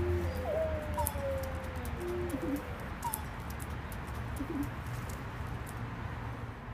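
A dove cooing: one long coo that jumps up and then slides slowly down, followed by a few short lower coos that grow fainter. A low steady hum runs underneath.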